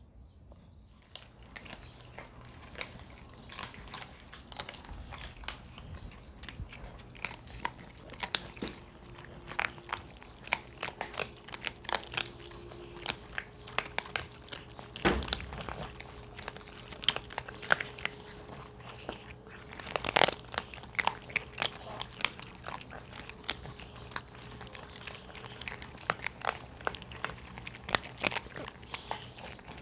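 Several cats crunching dry kibble together, a dense, irregular crackle of bites and chewing that starts about a second in.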